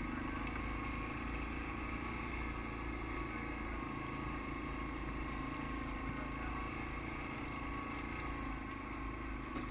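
ATV engine running steadily as it climbs a rough hillside trail.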